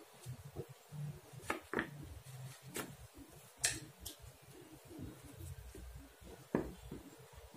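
Faint taps and clicks of felt-tip markers being handled and drawn across paper, a few scattered ticks over a low hum.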